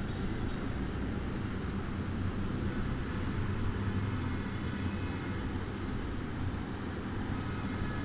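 A steady low rumble of background noise, with no distinct events in it.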